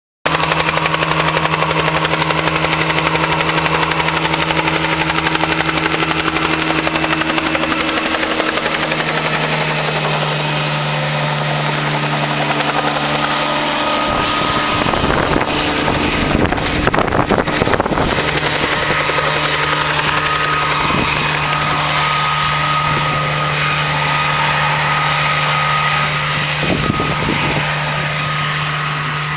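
Small helicopter flying low over a corn field to shake pollen loose with its rotor wash: a steady engine and rotor drone that grows loudest and roughest as it passes close by about halfway through, then fades slightly as it moves away near the end.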